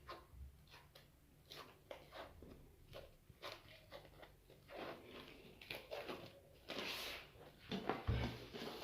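Faint, scattered knocks and clatters of kitchen utensils and cupboards being handled, several a second at times, with the louder knocks near the end.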